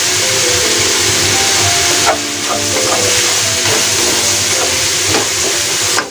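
Chicken and shimeji mushrooms sizzling hard in a stainless steel wok as they are stirred with a wooden spatula, with a few knocks of the spatula against the pan. The sizzle eases a little about two seconds in.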